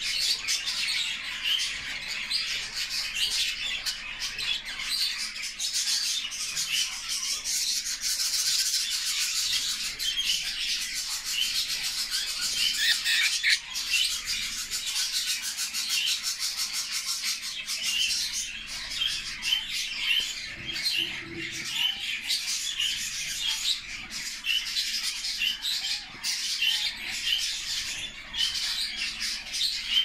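Budgerigars chattering: a steady, dense run of quick high chirps, squeaks and squawks.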